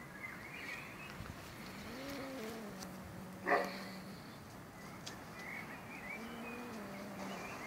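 Faint animal whining calls that rise and fall, with one short, louder cry about three and a half seconds in, over a low steady hum.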